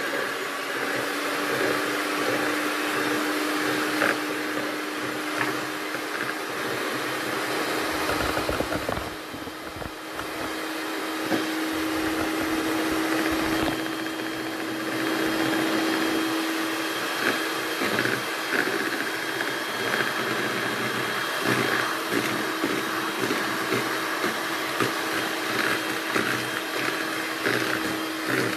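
Kenwood electric hand mixer running steadily, its beaters whisking egg whites in a plastic bowl as they froth up toward a meringue. The motor's hum dips briefly about a third of the way in, then runs on steadily.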